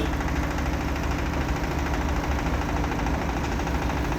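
Clay-brick extruding machine running, a steady low mechanical hum that holds even.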